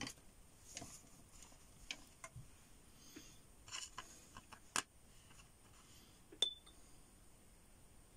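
Faint, scattered clicks and taps of watercolour painting tools handled on a desk: a paintbrush and metal paint tins. About six seconds in comes a short clink with a brief ring.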